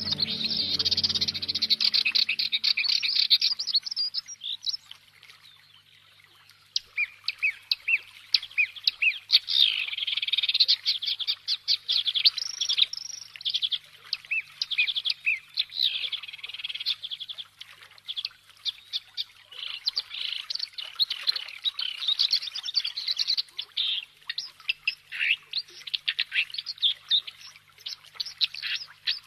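Many small birds chirping and singing together in a dense, continuous chorus of quick high chirps and trills, thinning out briefly about five seconds in.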